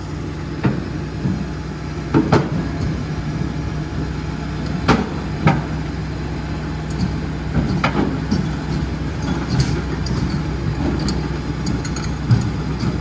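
Cat tracked excavator crawling down a low-loader trailer's ramps: a steady diesel engine hum with several sharp clanks from the steel tracks on the ramp.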